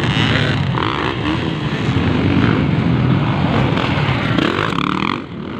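Motocross dirt bike engine running hard as the bike races along the dirt track.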